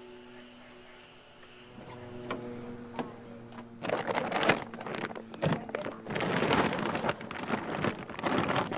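Soft music fades out, then belongings and bags are handled and packed into a car boot: irregular rustling and knocking from about four seconds in.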